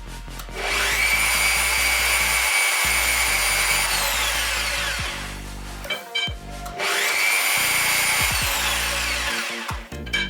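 A small motor whining up to speed, holding a steady high pitch for a few seconds, then winding down; it does this twice.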